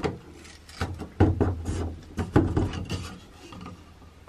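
Hinged plywood access panel on a brass piano hinge being swung open and shut by hand: a series of short wooden knocks and scrapes as it rubs against its frame, catching at one spot where the edge needs shaving.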